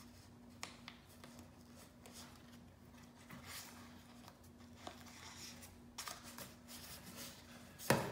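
Green painter's tape being pressed and smoothed by hand around a wooden chair arm: faint crinkling and rustling with a few small clicks, and a sharper click near the end. A faint steady hum runs underneath.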